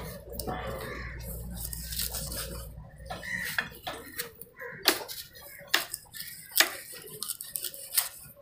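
Large cleaver-style knife chopping a king fish into steaks on a wooden block: a series of sharp knocks as the blade cuts through the fish and strikes the wood, the loudest coming in the second half.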